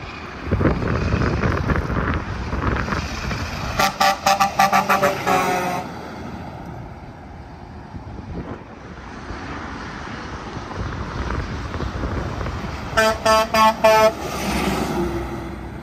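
Semi trucks passing on the highway, one sounding its air horn in a rapid string of short blasts about four seconds in. Another quick string of short horn blasts comes near the end.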